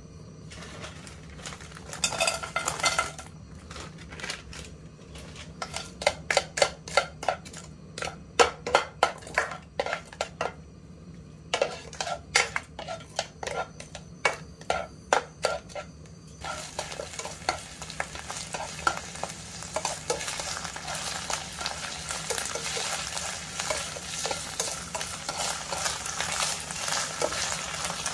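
Chopped green onions stirred in oil in a nonstick frying pan: a spatula knocks and scrapes against the pan in quick runs of clicks, then about halfway through the oil breaks into a steady sizzle that grows louder near the end.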